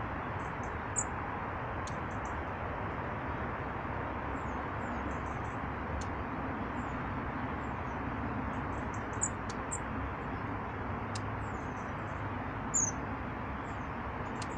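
Small songbirds at feeders giving short, high chirps and twitters, scattered singly and in quick runs, over a steady background rush.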